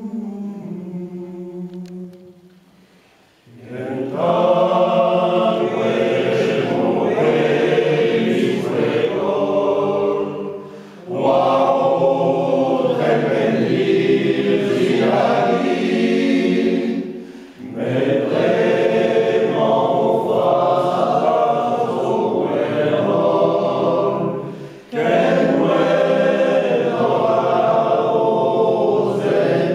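Men's choir singing unaccompanied in Breton. A thinner line fades to a brief lull a few seconds in; then the full choir sings in phrases of about seven seconds, with short breaks between them.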